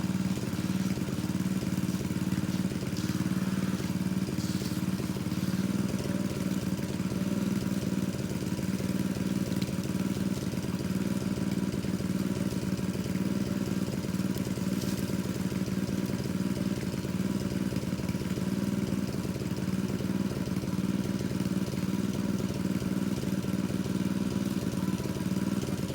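Engine of a pump draining a pond, running steadily at a constant speed.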